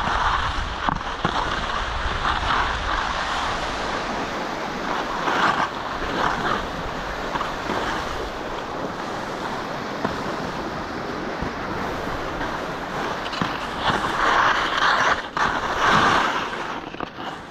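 Mountain stream rushing over rocks, a steady hiss of water, swelling louder a few times near the end.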